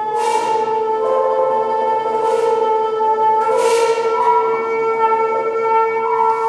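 A microtone duplex and a hechtyphon playing held long tones together. One steady low note sustains throughout while higher notes shift slightly around it, with four breathy rushes of air.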